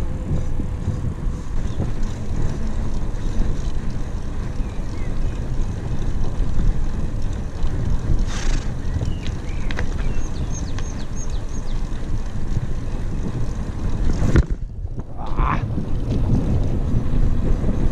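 Wind buffeting the microphone of a camera on a cyclist riding a bicycle along a paved street, a steady low rush. It drops away briefly about three-quarters of the way through.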